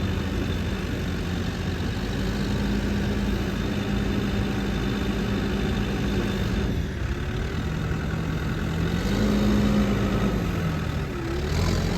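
Diesel engine of a New Holland B95 backhoe loader idling steadily, its pitch shifting up and down a little in the second half.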